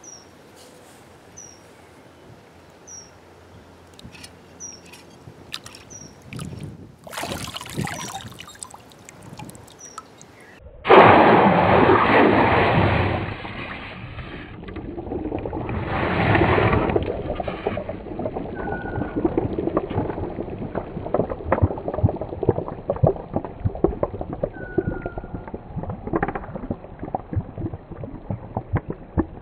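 Red-hot motorcycle cylinder head and barrel quenched in a tub of water: a sudden loud boiling and bubbling about eleven seconds in, surging again a few seconds later, then settling into a steady crackling fizz. Birds chirp in the quiet before the plunge.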